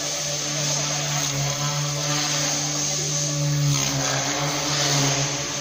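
Small radio-controlled helicopter in flight: its electric motor and rotors whir with a steady hum that wavers slightly in pitch, and the rotor hiss swells about two seconds in and again near four seconds.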